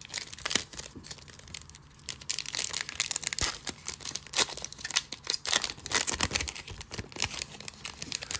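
Foil wrapper of a Donruss football trading-card pack being torn open and handled, crinkling with many sharp crackles that grow thickest from about two seconds in.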